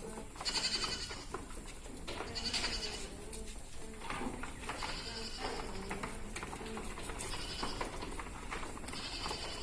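Black Bengal goats bleating, several separate calls a second or two apart.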